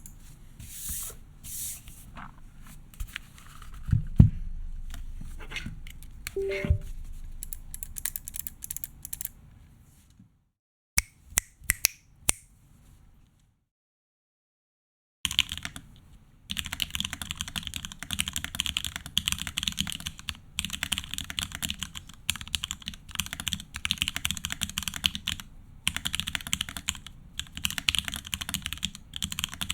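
Keycult No.2 custom mechanical keyboard with lubed 1986 Wyse vintage black switches, an aluminium plate and PBT keycaps. First come scattered clicks and a loud knock, then a short silence. About halfway through, fast, continuous typing begins.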